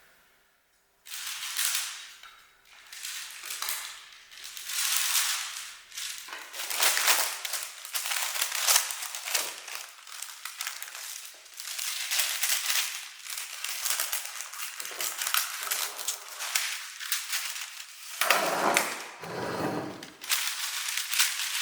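Repeated scraping and crunching strokes of cake ingredients being worked by hand, each swell lasting a second or two, with two fuller, deeper strokes near the end.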